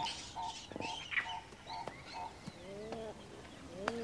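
Wild birds calling: short high chirps and falling notes, then two low rising-and-falling calls, the second near the end.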